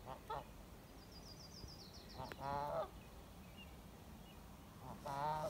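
An upset goose honking: two short calls right at the start, a longer, loudest honk about two and a half seconds in, and another honk near the end.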